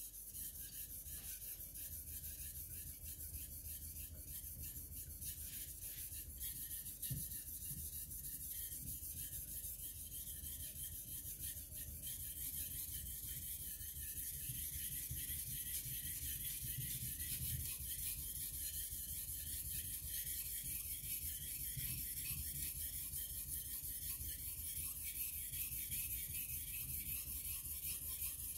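Steel blade of a Takamura Chromax knife (65 HRC) stroked back and forth over a wet Suehiro whetstone during sharpening: a continuous scraping hiss of steel on stone that starts suddenly and keeps an even pace.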